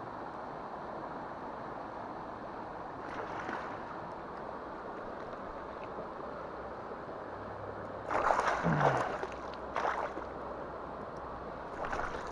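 Northern pike thrashing and splashing in shallow water as it is landed at the bank, over the steady rush of the river. A faint splash about three seconds in, the loudest splashing about eight to nine seconds in, and shorter splashes near ten and twelve seconds.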